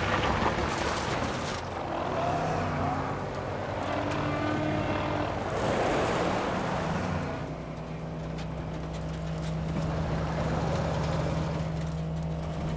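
Several off-road trucks' engines running hard and revving, with tyre and gravel noise as they race over loose gravel. From about halfway in, a steady low engine drone takes over.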